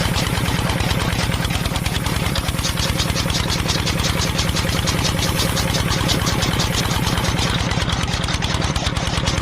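Small engine-like motor running steadily with a rapid, even chugging beat.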